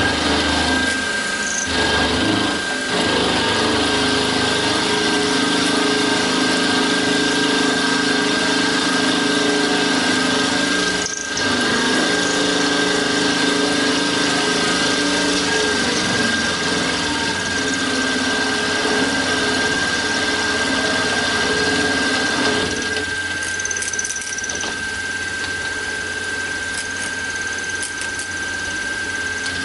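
Mini milling machine (a PM-25MV clone) running, its end mill cutting into a metal block under flood coolant, with a steady high whine over the cutting noise. The cut breaks off briefly about eleven seconds in, and the lower cutting noise thins out about two-thirds of the way through while the whine carries on.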